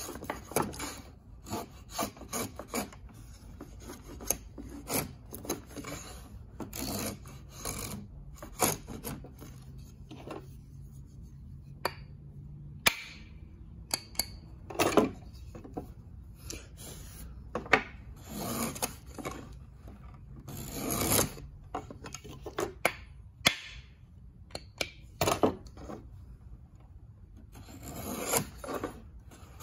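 1700s wooden molding plane cutting a profile along the edge of a board: repeated rasping strokes of the iron shaving the wood, in runs with short pauses between passes.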